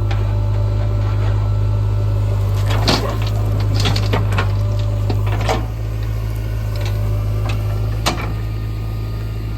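Heavy diesel engine running steadily under mud-loading work, with several sharp knocks scattered through.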